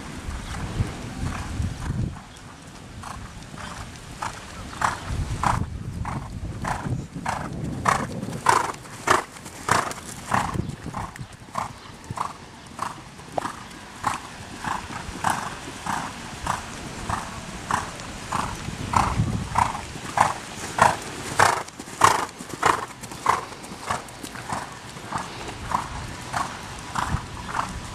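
Ridden horse moving at a steady gait in a sand arena, its strides making a regular beat about twice a second, with a low rumble at times.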